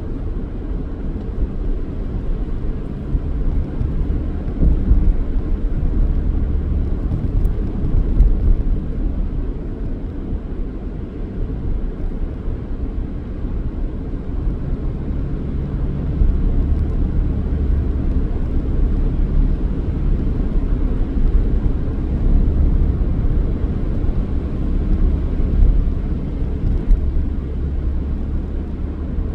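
Steady low rumble of a car being driven: engine and tyre road noise, a little louder in the second half.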